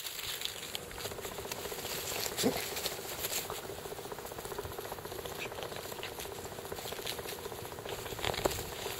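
Puppies scuffling and playing on grass, with light patter and rustling over a faint steady hum, and one brief squeak about two and a half seconds in.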